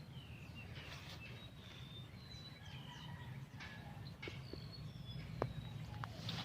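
Birds calling in many short, high chirps and whistles, several overlapping and some falling in pitch, with a few faint clicks.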